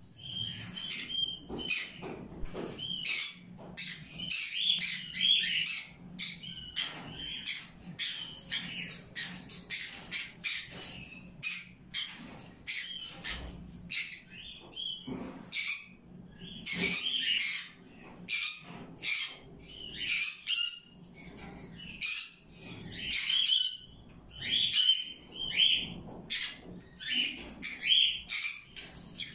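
Caged parrots, a conure and rose-ringed parakeets, calling almost without pause: a rapid run of short, high squawks and chirps.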